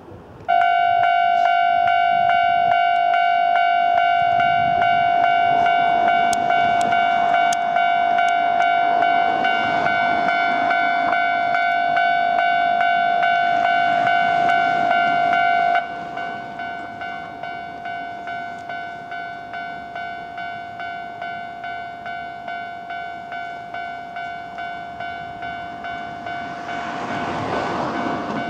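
Railway level-crossing alarm switching on: an electronic bell rings in a fast, even rhythm, loud at first and then quieter from about halfway through. Near the end the running noise of an approaching train rises under it.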